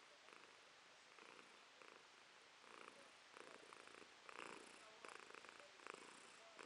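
Tabby cat purring faintly while being stroked at the neck and chest, a contented purr. It swells and fades about twice a second with her breathing, growing a little louder in the second half.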